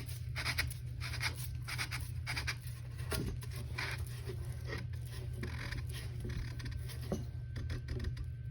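Threaded pipe nipple being screwed by hand into a sewage pump's discharge outlet: a series of short scratchy strokes about one or two a second, over a steady low hum.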